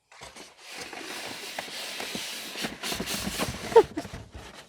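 Rustling and knocking of packaging and plastic parts being handled and pulled from a cardboard box, with scattered clicks and a brief squeak near the end.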